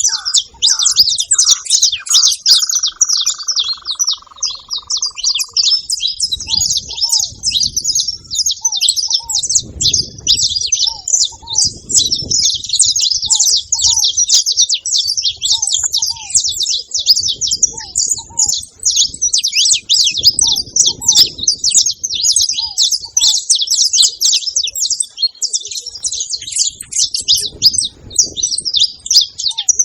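Saffron finches chirping, a dense, unbroken stream of rapid high calls with no gaps. A lower, falling whistle sounds in the first few seconds, and a soft lower note repeats about once a second underneath.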